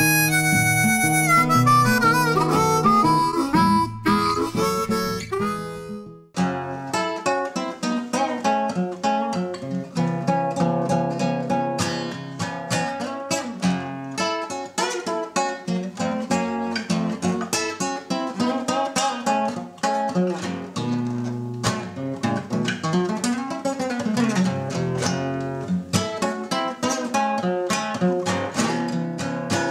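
Blues music led by harmonica, cutting off abruptly about six seconds in; then a solo nylon-string classical guitar played with picked notes and chords.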